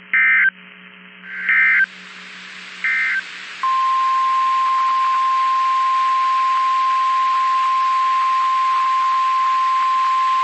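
Weather radio alert signals: three short, harsh digital data bursts of the SAME code, the end-of-message marker that closes the previous alert. About three and a half seconds in, the steady 1050 Hz NOAA Weather Radio warning alarm tone starts, over radio hiss with small flickers of dropout, announcing the next warning.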